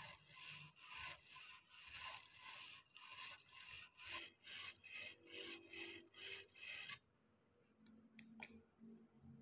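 Brass wire brush scrubbing rust off an old hand saw's blade and wooden handle, in quick back-and-forth strokes about two a second. The brushing stops abruptly about seven seconds in.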